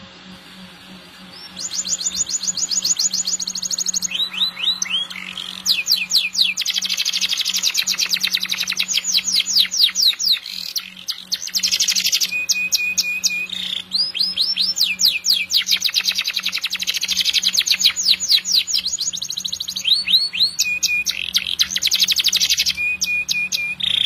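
Domestic canary singing a long, vigorous song: phrase after phrase of rapid repeated-note trills, starting about two seconds in, with brief breaks between phrases.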